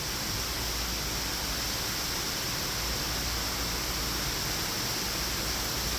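Heavy rain pouring down in a downpour, a steady, even hiss of water.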